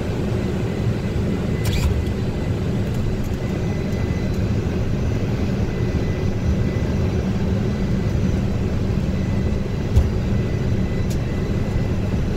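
Boeing 747-400 on its takeoff roll, heard inside the cockpit: a steady rumble from its four turbofan engines at takeoff thrust and its wheels on the runway. A single sharp knock sounds about ten seconds in.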